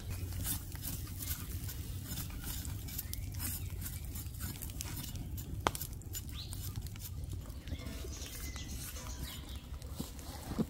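Wood fire crackling in a steel fire pit, with scattered sharp pops and ticks over a steady low rumble; one louder pop a little past the middle.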